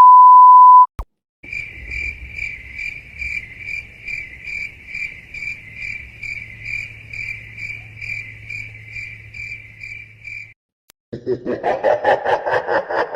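A short, loud, steady beep, then a crickets-chirping sound effect with an even rhythm of about three chirps a second, the stock 'awkward silence' meme sound. Near the end it cuts off and a burst of rhythmic laughter begins.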